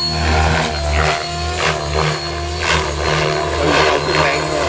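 Align T-Rex 550 electric RC helicopter, geared with a 112-tooth main gear and 12-tooth pinion, flying aerobatics. Its drive and rotor make a steady hum that swells and dips, with repeated blade whooshes as it manoeuvres.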